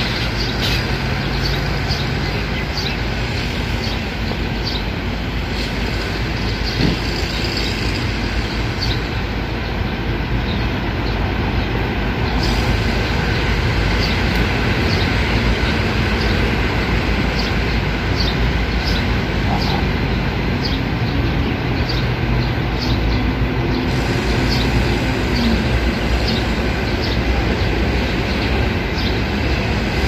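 Steady loud rumbling background noise, like nearby traffic, with short high bird chirps repeating over it about once a second.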